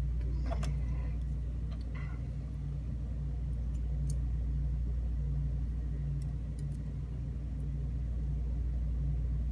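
Steady low background hum and rumble, with a few faint light clicks of small lock-cylinder parts being handled.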